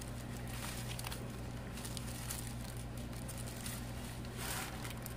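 Faint rustling and light tapping of paper and cardstock envelopes as they are handled and turned, over a steady low hum.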